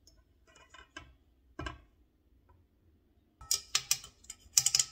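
Kitchen utensils clicking and clinking against dishes while batter ingredients are measured out: a few light ticks and a dull knock, then two quick runs of sharp, ringing taps near the end, about a second apart.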